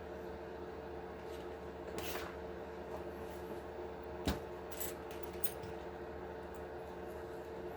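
A few light clicks and taps of small RC truck axle parts being handled, with the sharpest click a little past the middle, over a steady background hum.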